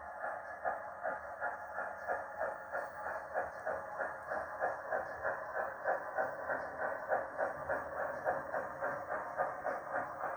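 Youchoos digital sound decoder in a 7mm-scale GWR steam railmotor model, playing steady steam exhaust chuffs at about three beats a second through the model's small onboard speaker.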